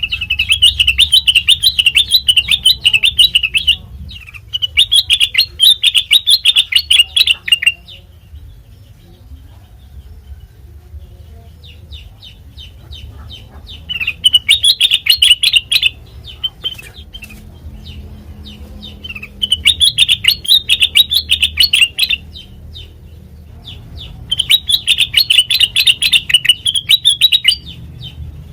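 Kutilang mas, a bulbul, singing in five bouts of rapid, high chattering notes, each bout about three seconds long, with pauses between them.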